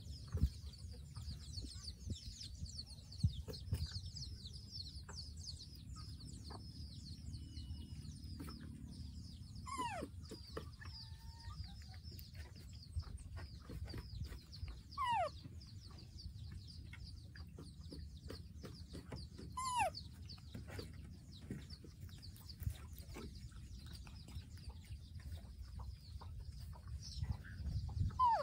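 A baby monkey gives four high squeals, each falling in pitch and lasting about half a second, spaced several seconds apart. Under them runs continual high chirping and a low rumble.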